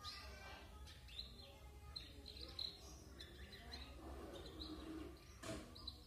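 Young domestic canary chirping faintly: a string of short, high chirps, with a sharp tap near the end.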